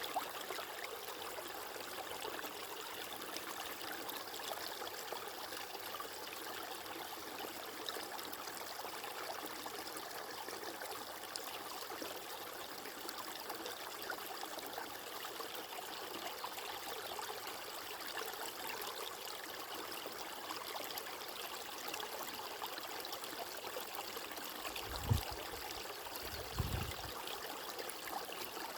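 Running water flowing steadily, with two short low thumps near the end.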